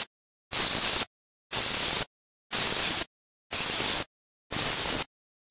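Angle grinder with a sanding disc grinding the edge of an acrylic disc. It is heard as about five half-second snatches, one a second, with dead silence between them.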